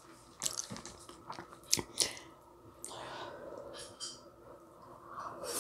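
Eating ramyun noodles close to the microphone: chewing and mouth smacks, with a few sharp clicks of chopsticks against a glass bowl.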